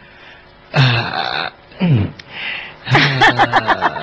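A man's low, wordless vocal sounds and laughter, in a few short spells with pauses between them.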